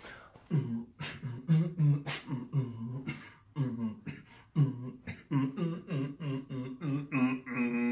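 A man's voice beatboxing a rhythmic run of short vocal pulses and mouth clicks, ending on a held note.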